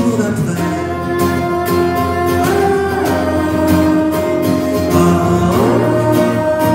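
Live band playing an instrumental passage of a song: acoustic guitars and keyboard, with long held notes.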